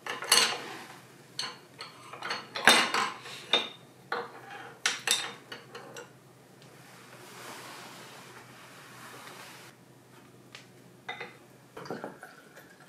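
Chopsticks fumbling and clattering against a plate and tableware in a run of sharp clicks and clinks, with a few more near the end. Then liquid begins pouring from a bottle into a glass.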